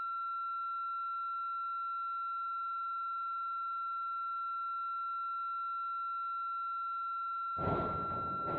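A steady high-pitched electronic tone holding one pitch, with fainter overtones. About a second before the end, a burst of rushing noise starts over it while the tone keeps going.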